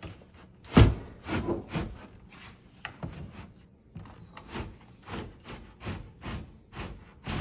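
Metal knocks and rattles of a Fisher & Paykel dishwasher drawer's slide rails and chassis as the unit is worked out of its cabinet. Short clunks come about three a second, with the heaviest thump about a second in.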